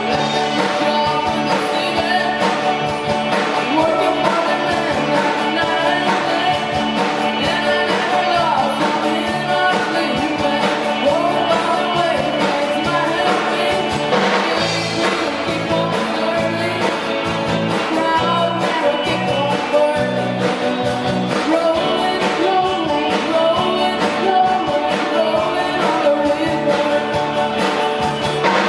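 A band playing live: sung vocals over acoustic and electric guitars, continuous music.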